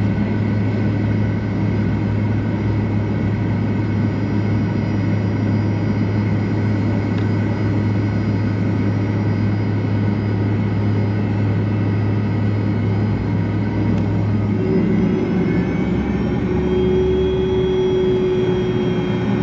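Cabin noise of a Fokker 100 slowing after landing, its rear-mounted Rolls-Royce Tay turbofans running with a steady low hum and several thin high whines. About fifteen seconds in, the low hum eases and a new steady tone sets in as the jet turns off the runway with its ground spoilers retracting.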